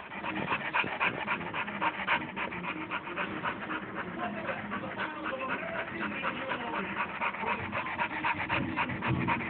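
A dog panting fast and hard close to the microphone, in a quick even rhythm: stress panting from a dog frightened by a thunderstorm.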